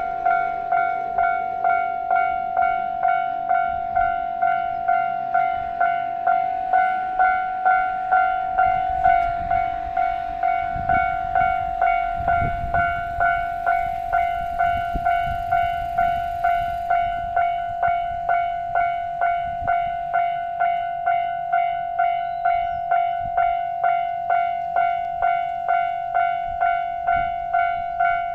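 Japanese level crossing warning bell ringing steadily at just under two strikes a second, one ringing pitch repeated over and over. A low rumble with some hiss comes in partway through and dies away again.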